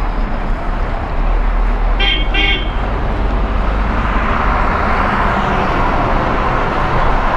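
A vehicle horn gives two short toots about two seconds in, over a steady low rumble of highway traffic.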